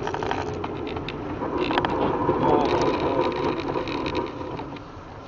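A car driving along, its engine and road noise heard from inside the cabin through a dash cam's microphone. It swells around the middle and eases off near the end.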